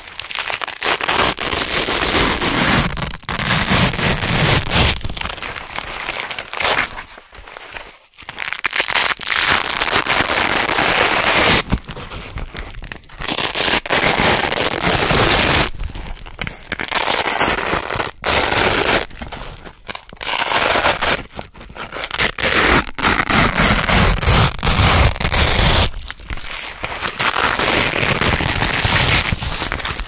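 Velcro hook-and-loop strips being pulled apart by hand again and again: crunchy tearing rips, each lasting from about one to several seconds, with brief pauses between them.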